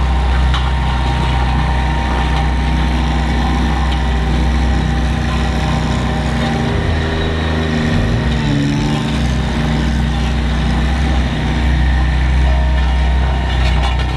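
Scania R520's 16-litre V8 diesel engine running steadily; its pitch drops and comes back up around the middle.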